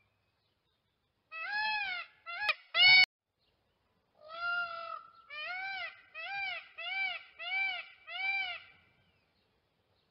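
Peafowl calling: a few loud, high, nasal-toned calls, the loudest about three seconds in. After a short pause comes a longer call and then a run of five short arched calls, about one and a half a second.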